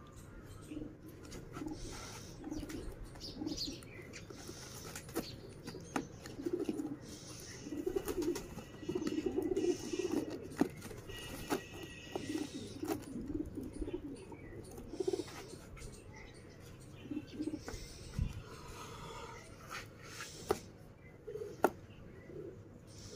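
Pigeons cooing in repeated low phrases, with a few sharp clicks and knocks scattered through.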